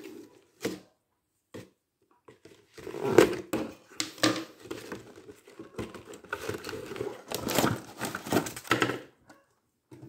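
Cardboard box flap opened and a clear plastic clamshell pulled out of the box: irregular scraping, rustling and plastic crinkling, starting about three seconds in after a short quiet spell.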